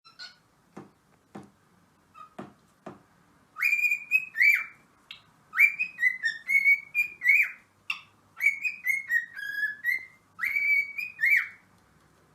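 Parrot whistling: a string of short whistled notes that glide up and down, in several quick phrases, after a few sharp clicks at the start.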